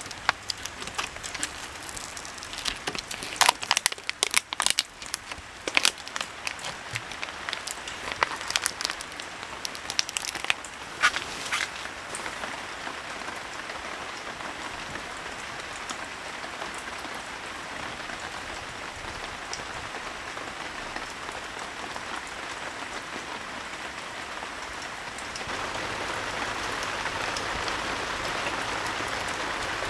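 Thin plastic food wrapper crackling and crinkling in irregular bursts as it is peeled by hand, over steady rain. After about 12 seconds only the steady hiss of rain remains, and it gets louder about 25 seconds in.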